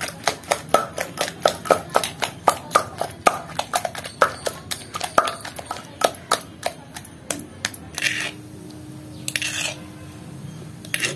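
Wooden pestle pounding wet cucumber chutney in a stone mortar: a run of quick, sharp knocks for about seven seconds, the chutney being crushed coarsely. Then a steel spoon scrapes the paste out twice, a little after eight seconds and again near nine and a half.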